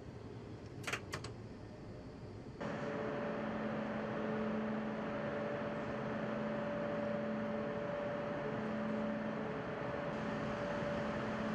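High-speed electric train moving slowly through a maintenance depot: a steady hum and whir with a couple of held tones, one of them pulsing on and off. It starts suddenly about two and a half seconds in, after a quieter stretch with a few clicks.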